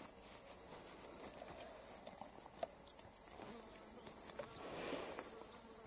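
Faint handling of a mesh fish trap: light rustling of the netting with a few small clicks, two of them a little under half a second apart near the middle, over a steady high hiss.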